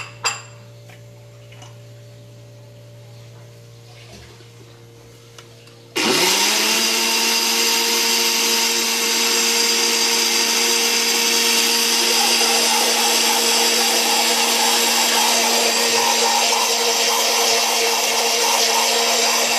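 A spoon clinks twice on a glass blender jar. About six seconds in, an electric countertop blender switches on, its motor pitch rising briefly as it spins up, then runs steadily, blending powdered milk into warm sugared water.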